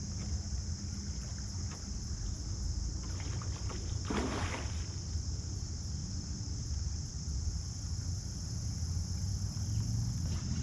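Water moving around a kayak with a steady low rumble, and one brief splashing swish about four seconds in.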